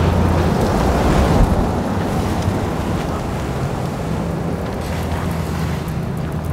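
Car driving along a town street: steady road and tyre rush with a low, even hum.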